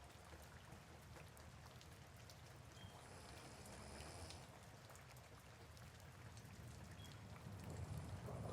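Faint soft rain with scattered drop ticks over a low rumble that grows louder near the end.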